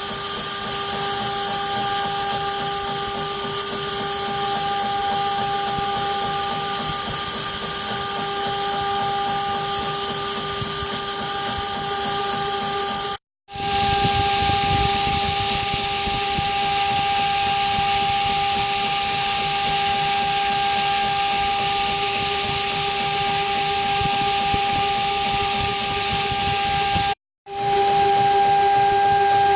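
CNC router spindle running at a steady high whine while carving, with an even hiss of the cutting; the sound drops out completely twice, briefly.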